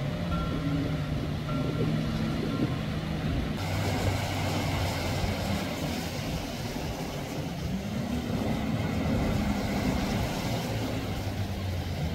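A heavy vehicle's engine running, its pitch rising and falling, with a beeping alarm sounding in repeated short beeps during the first few seconds.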